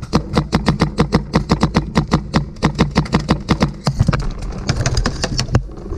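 Paintball marker firing in rapid succession, about eight shots a second for roughly four seconds, then slowing to a few scattered shots.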